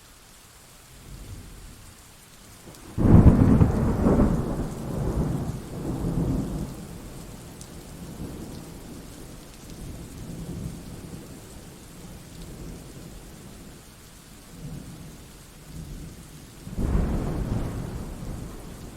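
Steady rain with thunder: a sudden loud clap about three seconds in that rolls on for several seconds, softer low rumbles after, and a second peal near the end.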